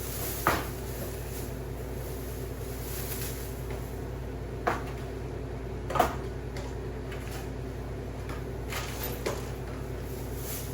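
A few scattered knocks and clacks as parts of a deer-feeder cage are handled, the loudest about six seconds in, over a steady low hum.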